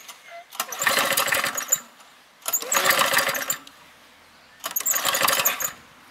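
Castelgarden lawn mower's four-stroke engine being pull-started three times, about two seconds apart, each pull turning it over for about a second without it catching. The engine has stood unused for years.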